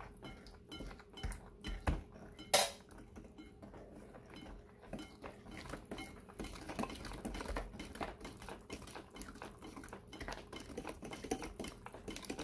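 Electric hand mixer beating wet banana cake batter in a glass bowl, its metal beaters clicking and knocking against the glass, with one sharp knock about two and a half seconds in.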